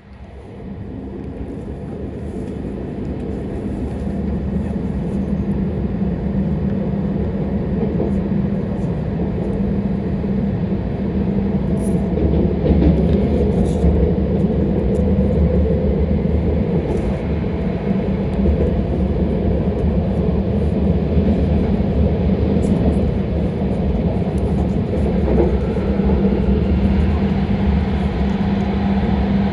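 Shinkansen train heard from inside the passenger cabin as it pulls away: a low running rumble that grows steadily louder over the first ten seconds or so as the train accelerates, then holds steady at speed.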